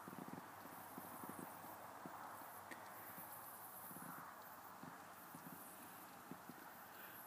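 Near silence: faint hiss with a few soft, scattered low taps and knocks.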